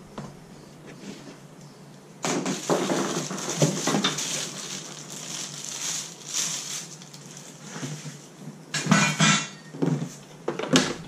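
Plastic wrapping crinkling and rustling, with hard plastic parts knocking and clattering against cardboard, as new lawnmower parts are handled out of their shipping box. There is a long bout starting about two seconds in and several short bursts near the end.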